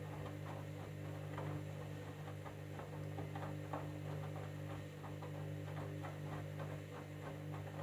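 Candy washing machine running a jeans cycle: a steady motor hum with light, irregular clicks and knocks as the drum turns.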